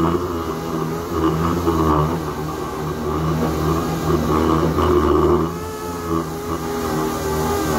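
Pneumatic random orbital sander running against a panel, sanding down body filler: a steady motor whine with a rough, wavering edge as the pad is pressed and moved over the surface. The level dips slightly and the tone shifts about five and a half seconds in.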